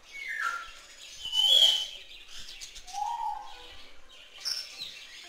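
Caged parrots calling: a string of short chirps and squawks, some sliding in pitch, the loudest about one and a half seconds in.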